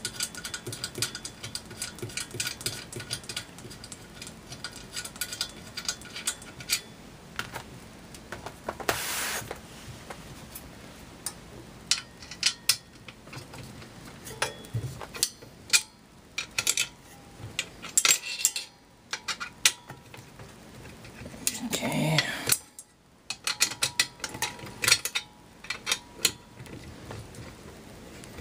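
Hand tool working screws out of a stainless steel ice shaver housing: irregular metallic clicks, ticks and light scrapes of the tool and screws against the metal, with a couple of brief rubbing sounds.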